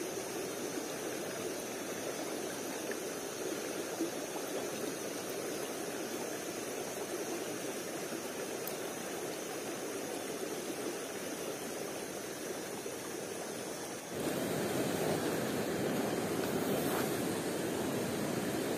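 Steady rushing of flowing river water, stepping up abruptly in loudness about fourteen seconds in.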